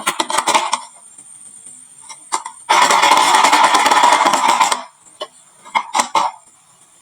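Marbles clattering down a wooden marble run: a quick run of clicks at the start, a dense rattle of many marbles together for about two seconds in the middle, then a few scattered clicks.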